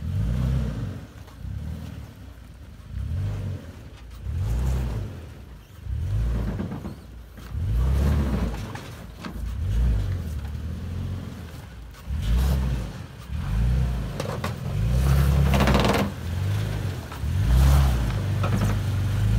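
Toyota Tacoma pickup crawling over boulders at low speed, its engine swelling and easing every second or two as the throttle is fed in and let off, getting louder in the second half of the climb.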